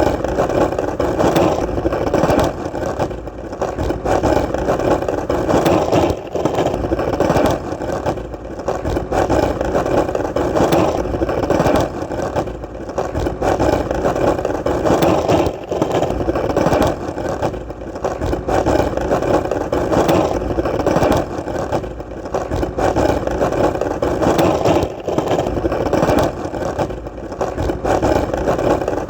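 Skateboard wheels rolling steadily on hard, solid ground: a continuous rolling rumble that briefly dips every few seconds.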